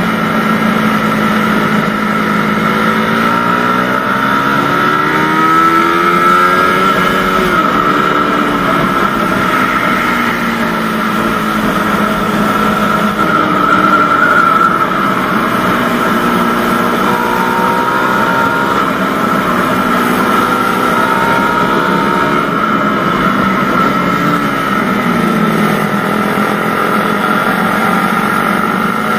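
Suzuki Satria FU motorcycle engine under way, its pitch rising and falling several times as the rider accelerates, shifts and rolls off through the bends, over a steady rush of wind and road noise.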